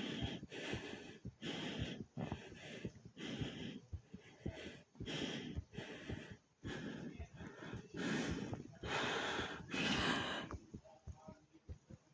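Hard, fast breathing heard close up, quick noisy breaths less than a second apart, over a run of short low heartbeat thumps. The longest, loudest breaths come about two-thirds of the way in, and the breathing then goes quieter.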